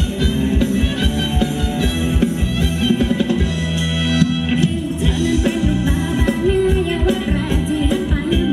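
Live band playing upbeat Thai ramwong dance music with a steady drum beat. The drums drop out for about a second and a half midway, leaving a held low chord, then the beat returns.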